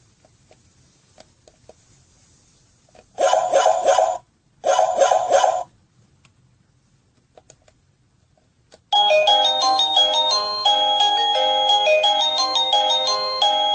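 Sadotech Model C wireless doorbell chime playing its electronic tones. There are two short chime bursts about three to five seconds in, then, after a few faint clicks, a stepping electronic melody starts near the end and keeps going.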